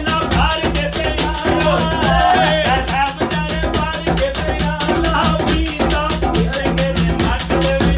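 Live Punjabi folk music: a man singing into a microphone through a PA over a fast, steady percussion beat of sharp strokes and a low pulsing bass.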